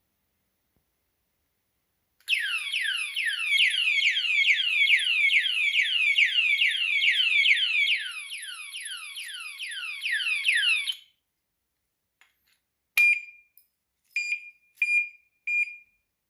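Motorcycle alarm padlock's siren going off: a fast series of falling whoops, about three to four a second, that cuts off suddenly. A few seconds later come a click with a short beep, then three more short beeps.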